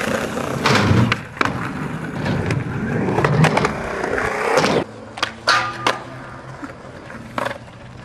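Skateboard wheels rolling on concrete, with sharp clacks of the board popping and landing, and a grind along a metal handrail about four seconds in. It goes quieter a little later, with a few single clacks.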